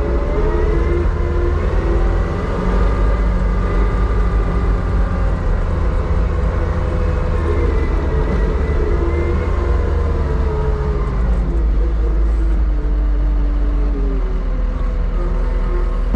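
Heavy machinery running with a steady deep rumble, its engine pitch slowly rising and falling.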